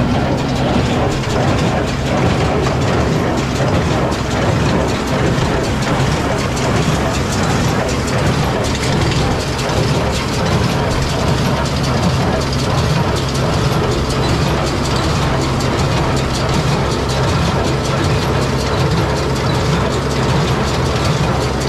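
John Deere small square baler running while it picks up a windrow of hay, its pickup tines and plunger making a loud, steady mechanical clatter.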